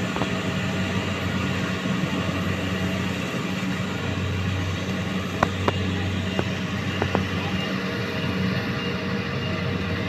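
Rice combine harvester running steadily as it harvests, a constant low engine hum under the noise of its working machinery, with a few sharp clicks about halfway through.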